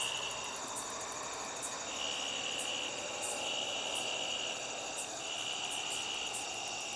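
Crickets trilling in a high, even pitch, in bouts of one to two seconds with short breaks, over a steady background hiss.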